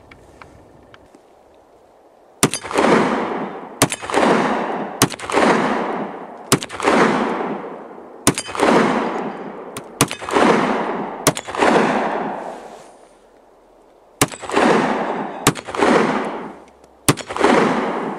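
AMT Automag III pistol in .30 Carbine fired single shots: ten shots about one to two seconds apart, each with a long echo rolling after it. There is a pause of about three seconds after the seventh shot.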